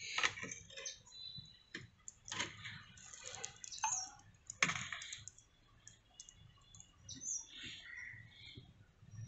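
Irregular taps, clicks and small splashes of a hand net and a plastic bucket being handled over a guppy breeding tank, busiest in the first five seconds.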